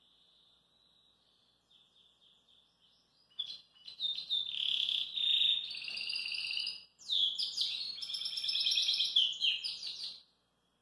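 Domestic canary singing: a soft, quiet warble at first, then from about three and a half seconds in a loud song of rapid trills and rolling phrases, with a brief break in the middle, ending shortly before the close.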